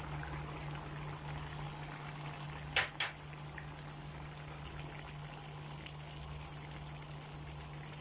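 Sweet and sour tomato sauce bubbling in a frying pan as it is stirred with a spatula, over a steady low hum. Two sharp knocks come close together about three seconds in.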